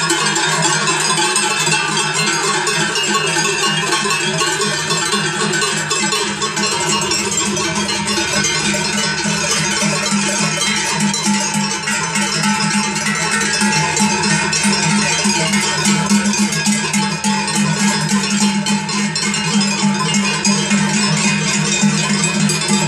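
Many cowbells hung on a herd of cows clanging together as the animals walk past: a dense, steady jangle of overlapping bells.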